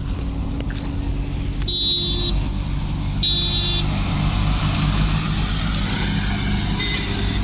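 A motor vehicle's engine running steadily, with two short high-pitched beeps about a second and a half apart.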